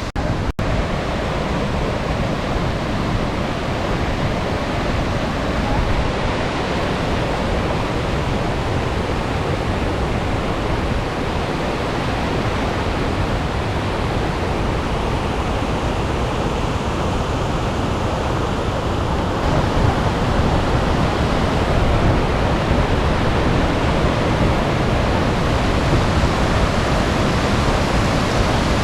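Lakkom waterfall: a heavy flow of water pouring down over rocks, making a loud, steady roar.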